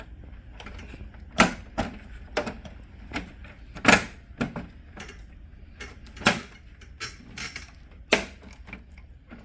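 Sharp, irregular plastic clicks and snaps as a laser printer's plastic side cover is pressed and clipped into place, the loudest about four seconds in.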